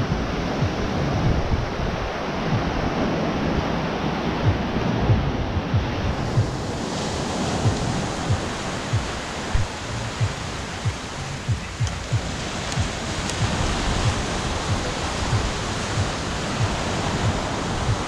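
Ocean surf washing onto the beach, with wind buffeting the microphone. Regular low thuds come about twice a second, at a walking pace.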